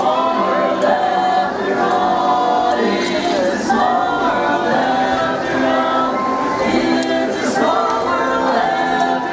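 Barbershop quartet singing a cappella, several voices holding chords together in close harmony.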